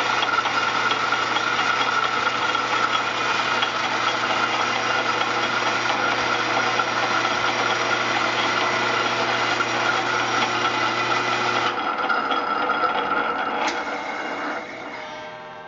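A mid-to-late-1800s Morse lathe running under power, its cutter feeding along on its own and turning a reclaimed poplar peg, with a steady machine hum and cutting noise. About twelve seconds in the hum stops and the sound dies away. Right at the end a clock begins to chime as the cut finishes.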